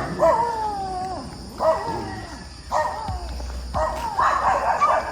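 Dog whining and yelping in a series of short cries that fall in pitch, with a harsher, barking call about four seconds in.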